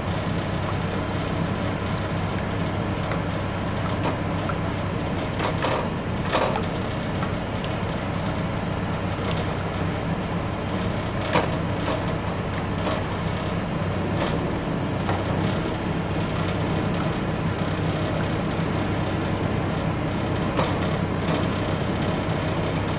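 A spoon stirring a thickening béchamel sauce in a pot, with scattered clicks and knocks against the pot, over a steady low hum.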